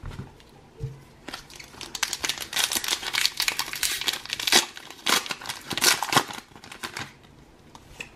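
Foil wrapper of a Pokémon booster pack crinkling and being torn open by hand, a dense run of crackles lasting several seconds. Two light knocks come in the first second.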